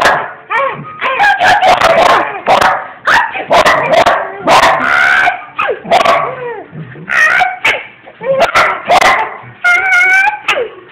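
A dog vocalising in a rapid, loud run of short pitched yips and whines that bend up and down in pitch.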